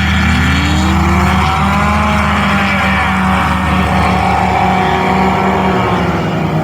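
Light STOL aircraft's 130-horsepower Rotax engine and propeller running at high power, its pitch gliding up and down as the plane moves past.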